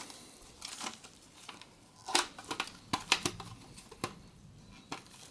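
Plastic SSD caddy being handled and pushed into a hard drive caddy: a scatter of sharp plastic clicks and knocks, most of them in the middle.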